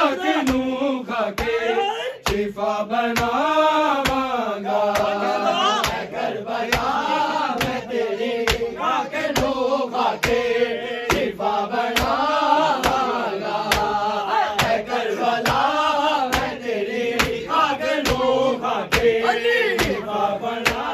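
Men chanting a Punjabi noha lament together, with a steady beat of sharp slaps from hands striking chests in matam keeping time.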